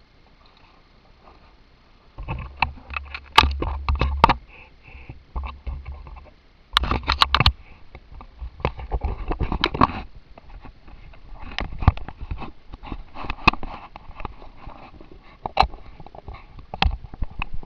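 Knocks, clicks and rubbing on a wing-tip action camera's housing as it is handled, with gusts of wind rumbling on its microphone twice in the first half.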